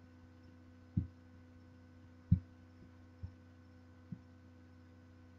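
Steady electrical hum from the recording setup, made of several fixed tones, with four short, dull low thumps about a second apart, the loudest a little past the middle and the last one faint.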